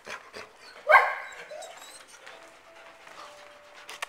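A dog barks once, loudly, about a second in, amid dogs at play; faint light clicks follow.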